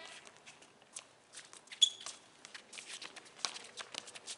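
Players' sneakers running and scuffing on a concrete court, with scattered taps from the soccer ball being kicked and a short high sneaker squeak about two seconds in.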